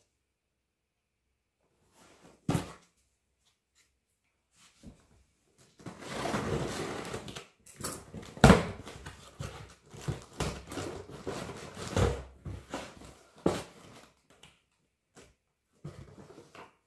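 A cardboard box being handled and opened: rustling and scraping of cardboard with sharp knocks, a longer rasping stretch about six seconds in, and loud knocks about three and seven seconds later.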